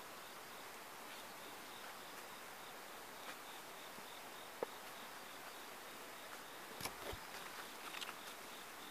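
An insect chirping faintly in a steady, even pulse of a high tone over a low hiss. A sharp click comes a little past halfway, and a few light clicks and rustles come near the end.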